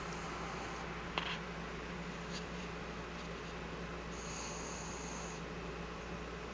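Small Pomeranian-Chihuahua puppy snoring softly in its sleep: two drawn-out hissing breaths about four seconds apart, with a single small click about a second in.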